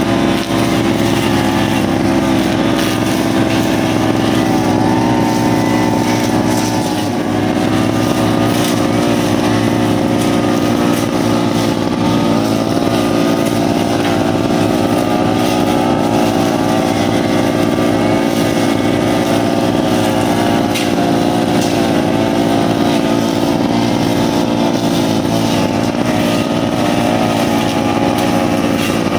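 Brushcutter engine running steadily at working speed, its pitch wavering slightly, as the machine is used to sweep dry leaves off a road.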